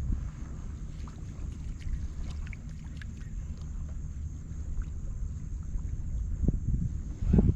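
Water lapping against a small fishing boat's hull, with a low steady rumble, a few faint light ticks, and two duller thumps near the end.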